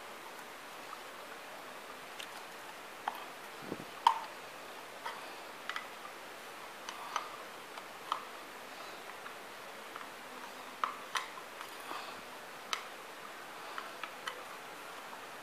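Scattered small clicks and taps of a motorcycle mirror's glass and plastic housing being handled and worked at the edge with a wooden stick, the loudest about four seconds in.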